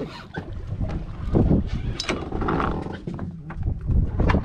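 Wind buffeting the microphone on a small boat, over water sloshing against the hull, with uneven gusts and a few small knocks.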